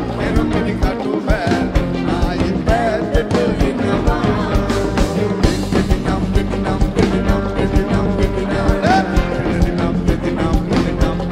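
Live band playing an upbeat Sinhala pop song with drum kit, guitars and keyboards over a steady beat, with singing at times.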